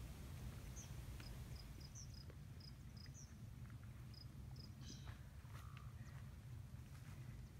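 Faint lakeshore ambience: scattered short, high chirps from small distant animals over a low steady hum.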